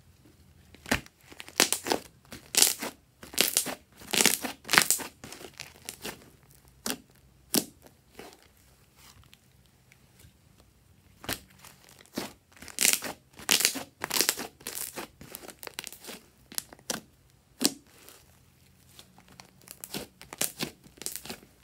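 Fluffy slime being stretched and squeezed by hand, its trapped air crackling and popping in spells of quick snaps with quiet pauses between.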